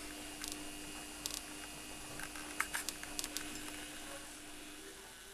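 Scattered small clicks and creaks from a hand-held camera being handled, over a steady low hum that shifts slightly higher near the end.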